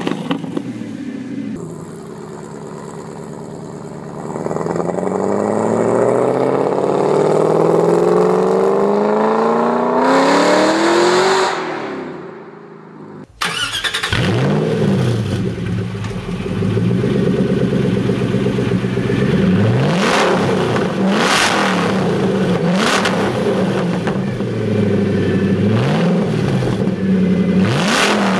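Ford GT's 5.4-litre supercharged V8. First its note climbs steadily for several seconds, then drops away and fades. After a cut, the V8 is revved in short blips from idle, with sharp cracks at several of the blips.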